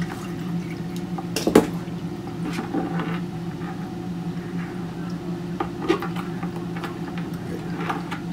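Metal tongs and live Dungeness crab shells clicking and scraping against each other and the plastic bucket as crabs are lifted out, with a few sharp knocks, the loudest about one and a half seconds in. A steady low hum runs underneath.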